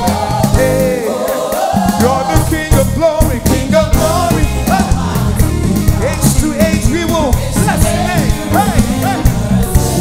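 Live gospel worship music: a woman sings lead with a group of backing singers over a band, singing 'King of glory, Almighty God, age to age you remain the same.' A steady low beat runs under the voices, with the bass dropping out briefly about a second in.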